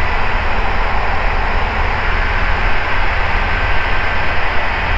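Ikarus C42B microlight in cruise: the steady drone of its engine and propeller mixed with rushing air noise, with a faint steady high tone above it.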